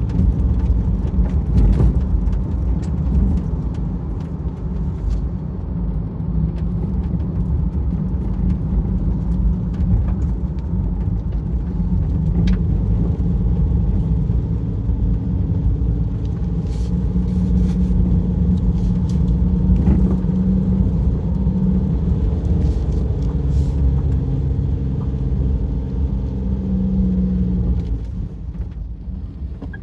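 A motor vehicle driving, with steady engine and road rumble whose pitch drifts up and down with engine speed.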